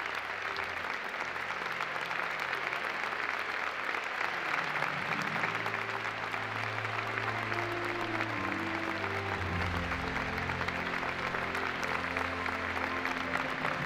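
Audience applauding steadily, with instrumental music playing underneath that comes up more strongly about five seconds in.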